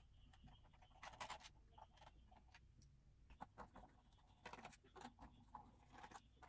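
Very faint, scattered light clicks and taps of hands handling a DJI Phantom 3 Standard drone's plastic shell and its small screws.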